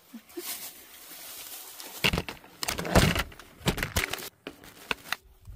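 Handling noise: a rustle, then a quick run of knocks and clicks, the loudest about three seconds in.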